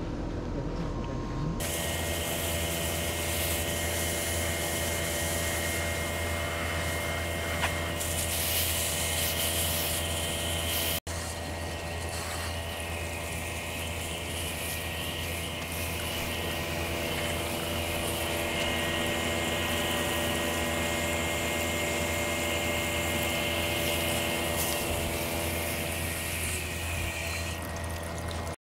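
Garden hose spray nozzle spraying water onto river rocks, a steady hiss that starts about a second and a half in. Under it runs the steady hum of a central air conditioner's outdoor unit.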